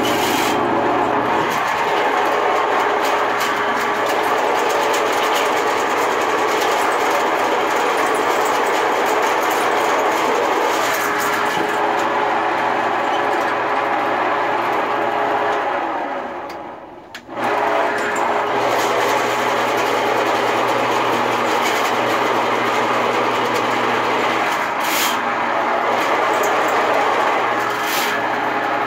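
RIDGID K-60 sectional sewer machine's electric motor running steadily as it spins 7/8-inch cable into a clogged areaway drain. About sixteen seconds in the motor's pitch falls away as it is switched off, and it starts again within a second; a couple of sharp clicks come near the end.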